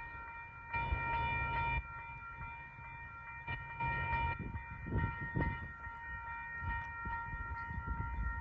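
A distant train sound: a steady chord of several high pitches that does not change. Over it come a few louder swells of rumbling noise, the loudest about a second in.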